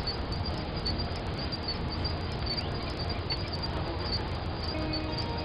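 Open-country ambience: a steady low rumble and hiss with faint, high insect chirps repeating irregularly. A few soft, held music notes come in near the end.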